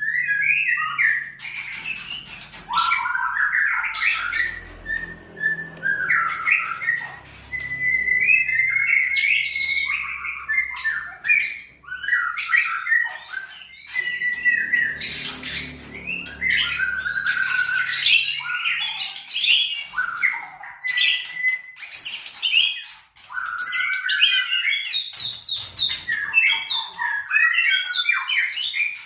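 White-rumped shama (murai batu) singing a long, varied song of rapid whistles, trills and sharp clicking notes, almost without pause.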